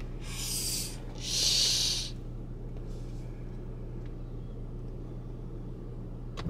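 Steady low hum of a car heard from inside the cabin, with two short hissing swishes in the first two seconds, the second louder.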